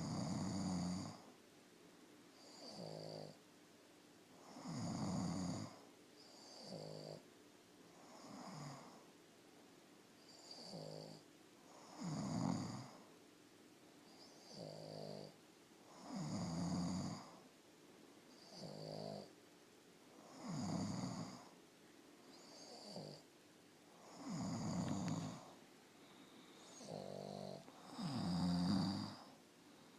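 Steady rhythmic snoring in two alternating kinds: a loud, rough snore about every four seconds and a shorter, buzzier one between each pair.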